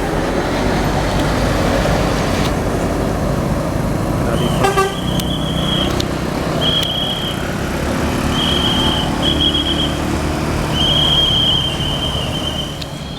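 A tour bus's telolet horn tooting a high note on and off about five times, the last toot the longest, over the rumble of the bus engine.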